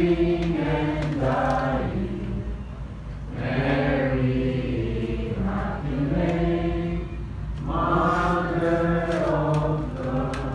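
Several voices chanting together in unison, with held notes in a few long phrases separated by short breaks.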